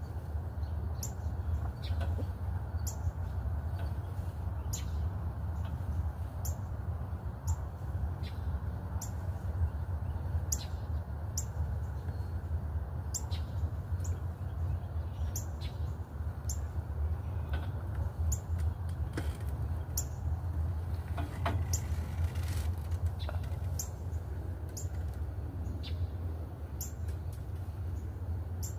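Birds chirping: short, high, falling calls repeated about once a second, over a steady low rumble.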